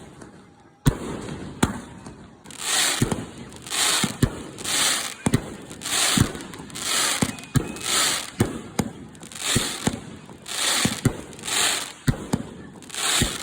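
Aerial fireworks going off: sharp bangs in quick succession. From about two and a half seconds in comes a regular string of bursts, a little more than one a second, each with a short hissing crackle.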